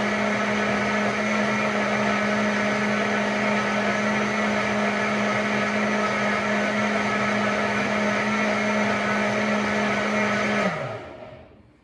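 High-powered countertop blender running steadily at high speed, blending beetroot, carrot and water into juice. About ten and a half seconds in it is switched off, and the motor's pitch falls as it winds down.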